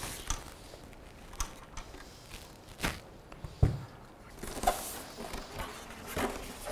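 Monitor packaging being handled: a plastic bag rustling and scattered light clicks as a monitor stand base is taken out, a dull knock as the stand base is set down on the desk about three and a half seconds in, then packing foam rustling and rubbing as the foam tray is lifted from the box.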